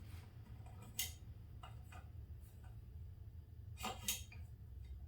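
A few light clicks and taps of metal motorcycle fork parts being handled: the retaining cup going onto the bottom of the damper tube. Single clicks about a second in and near two seconds, a pair near four seconds, over a steady low hum.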